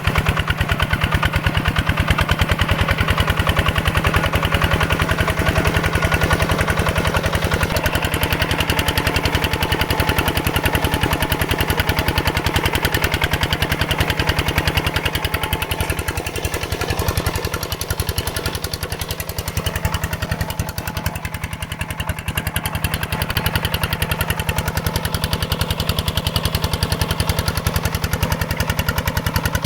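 Mini tractor's single-cylinder diesel engine running steadily with a fast, even putter. It dips a little in level for a few seconds past the middle.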